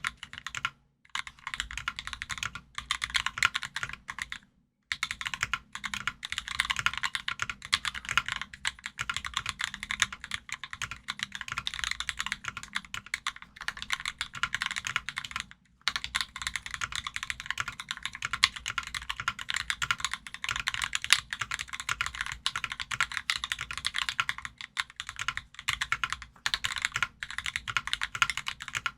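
Fast continuous typing on an NK65 aluminum mechanical keyboard with lubed Durock Smokey linear switches and PBT keycaps, a dense stream of keystrokes that pauses briefly about a second in, near five seconds and near sixteen seconds.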